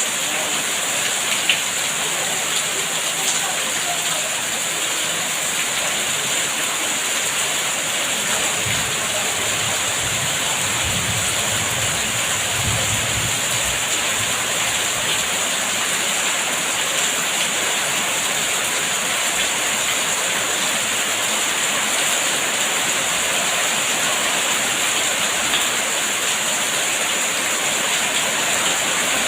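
Steady, continuous rainfall with an even hiss, and a faint low rumble for several seconds partway through.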